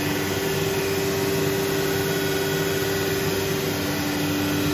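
Becker VTLF 250 rotary-vane vacuum pump running steadily: a constant drone with a steady two-note hum, one note of which drops out near the end.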